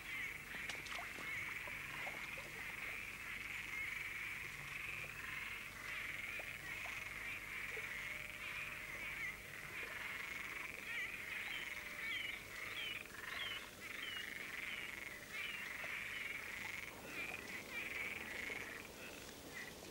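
A steady, high chorus of calling animals, with a run of short chirping calls on top of it from about eleven to sixteen seconds in; the chorus thins out near the end.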